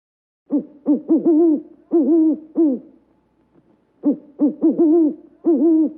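Pigeon cooing in two phrases of several low, rolling coos, each about two seconds long. The first starts about half a second in and the second about four seconds in.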